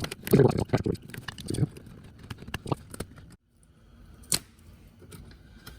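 Metal hand tool clicking, tapping and scraping against the hold-down clip on a car's fuel and brake lines as it is pried at. There is a flurry of small knocks in the first second and a half, then quieter scraping with one sharp click about four seconds in.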